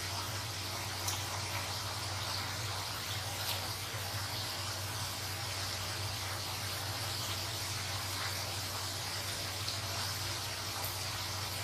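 Doughnuts deep-frying in hot oil: a steady sizzle with a few faint ticks, over a low steady hum.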